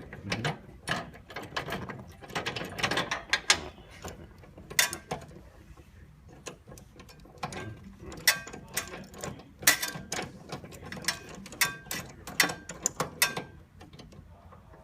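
A screw being driven into a barber chair's metal frame with a hand tool: irregular sharp metallic clicks and ratcheting, some with a brief ring.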